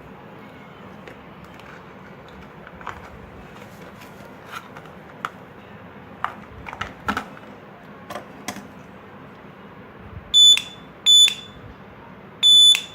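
Homemade doorbell's 9-volt buzzer, run from a 9 V battery, giving three short, shrill beeps in quick succession near the end as the bell push switch is pressed. Before them there are a few light clicks and taps.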